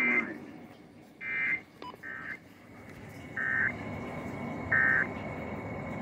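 Weather radio sounding the EAS/SAME end-of-message data bursts: short buzzy digital chirps about a third of a second long, repeating roughly every 1.3 s, five in all, signalling that the warning broadcast has ended. A single sharp click comes between the second and third chirps.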